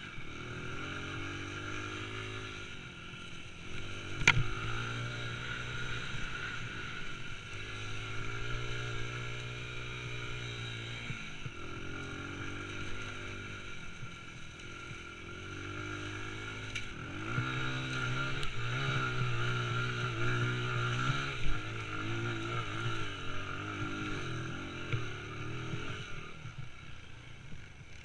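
A small engine running and being revved, its pitch rising and falling in repeated waves, with a sharp knock about four seconds in.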